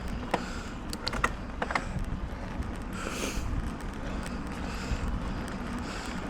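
Wind rushing over the microphone over a steady low road rumble while riding. There are a few short sharp clicks in the first two seconds, and a breath-like hiss comes about three seconds in.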